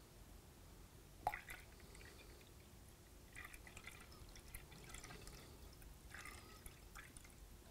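Water trickling faintly from a plastic measuring jug into a plastic beaker as it is topped up slowly to a mark, with a light tap about a second in.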